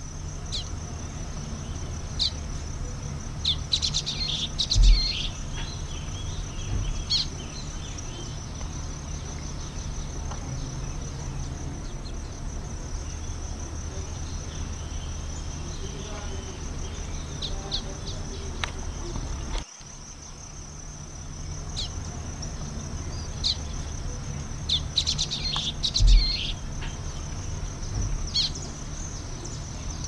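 A steady high-pitched insect trill with scattered short bird chirps. Twice, a few seconds in and again near the end, comes a burst of twittering bird calls with a dull low thump.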